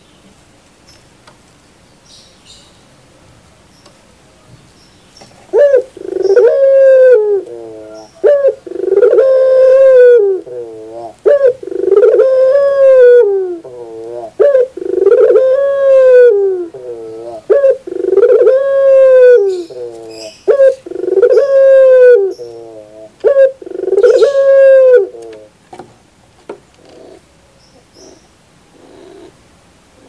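A caged puter dove (Barbary dove) cooing: a series of about seven repeated coo phrases, each about two seconds long and bending up then down in pitch. They begin several seconds in and stop near the end, followed by a few faint notes.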